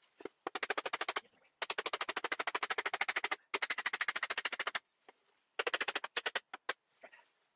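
Screwdriving tool clicking rapidly and evenly, about sixteen clicks a second, in four runs of roughly half a second to two seconds with short pauses, ending in a few single clicks.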